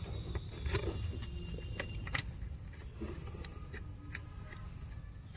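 Scattered light metallic clicks and clinks of hand tools and bolts while a transmission oil pan is being bolted up under a car, over a steady low hum.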